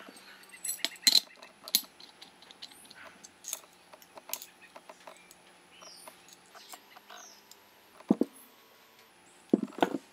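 A SunwayFoto GH-02 metal gimbal head being handled: scattered clicks and knocks of its arms, clamp and knobs, louder about a second in and again near the end. Faint short high bird chirps in the background.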